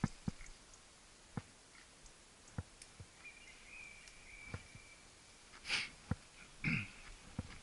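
Young wild boar snorting: a breathy snort about six seconds in and a second, shorter one just after. Soft thumps come about every second and a half.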